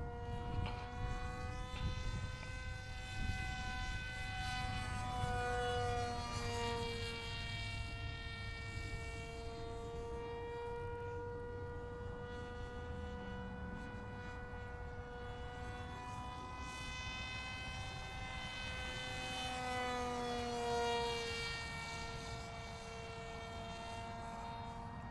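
Cardboard F-22 Raptor RC plane's electric motor whining steadily in flight, its pitch bending twice as it passes and turns, with wind rumble on the microphone.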